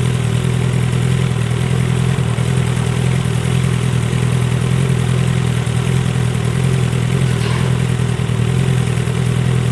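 Honda CBR1000RR (SC59) inline-four engine idling steadily through a TSR aftermarket muffler.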